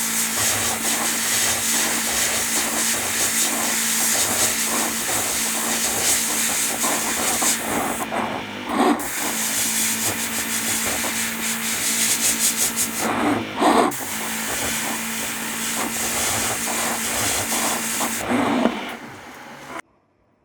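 A power tool working on metal: a steady hiss over a constant motor hum, broken off briefly twice with a couple of knocks, then cut off near the end.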